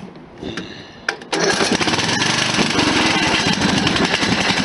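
Riding lawn mower's small engine cranked briefly on its electric starter, catching about a second in and then running loud and steady. It comes to life quickly after a carb cleaning, new plug and fresh oil, with a baffle rattling loose inside its muffler.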